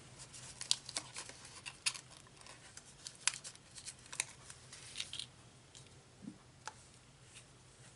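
Paper sticker sheets crinkling and ticking as they are shuffled and a sticker is peeled off its backing: a run of small crisp clicks and crackles that thins out after about five seconds, to a few ticks and then quiet.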